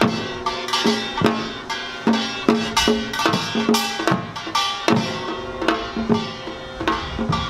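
Samdo seated samulnori percussion ensemble playing a driving rhythm: janggu hourglass drums and a buk barrel drum struck in quick, regular strokes, under the bright ringing clang of a kkwaenggwari small gong.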